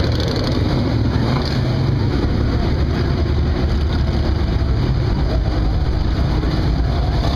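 Car engine and exhaust rumbling steadily and loudly, with a rushing noise over it.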